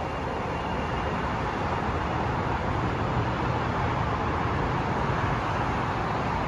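CTA 7000-series 'L' rapid-transit train pulling out of the station: a steady rumble of wheels and running gear that grows slightly louder.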